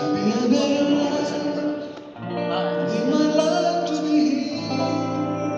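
A man singing while playing an acoustic guitar through a small PA, in a live rehearsal, with a brief pause between phrases about two seconds in.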